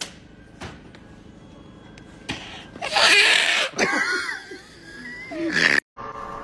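A person's strained vocal sound: a loud breathy burst about three seconds in, then a high voice gliding up and down in pitch, cut off abruptly near the end.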